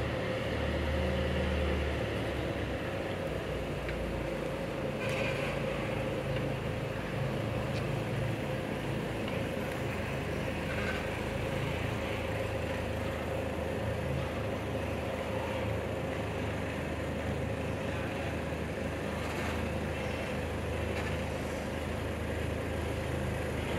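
Boatyard forklift's engine running steadily, a low rumble with a steady hum above it.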